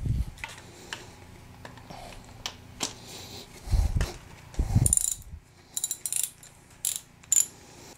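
Ratcheting wrench clicking in short runs as the timing chain tensioner is unscrewed from a 2006 Mini Cooper S (R53) engine block, with a few dull knocks of tool against metal.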